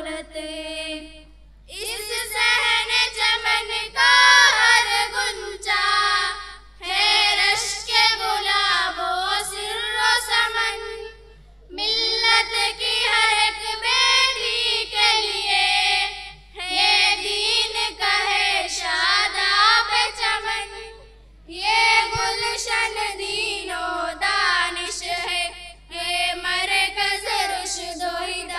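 Girls' voices singing a tarana (a school anthem) together into a microphone, in sung lines of about four to five seconds broken by short pauses for breath.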